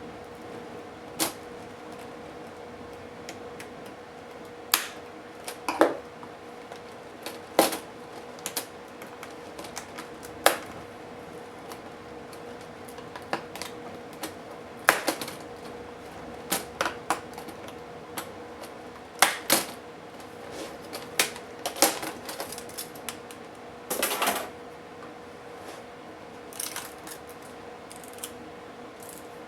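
Irregular sharp clicks and knocks of HP DV8000 laptop parts and tools being handled during disassembly, with a short rattling cluster near the end, over a steady faint hum.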